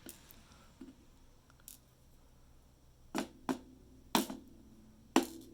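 A few faint small clicks, then four sharp knocks in the second half, each with a short ring: the cylinder of a dimple lock being tapped to free pins that stick in their factory oil.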